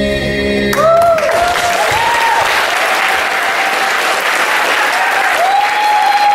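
Choir-like sung music stops about a second in, and an audience breaks into loud applause and cheering, with repeated whoops over the clapping.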